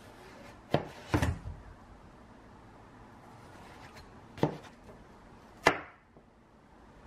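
A kitchen knife cutting watermelon on a plastic cutting board: the blade chops down through the rind and knocks on the board. A sharp knock under a second in is followed by a longer, heavier crunching cut, then two more single knocks, one about four and a half seconds in and one near six.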